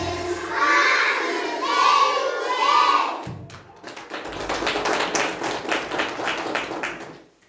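Children's voices calling out together, then an audience clapping for about four seconds, which cuts off suddenly near the end.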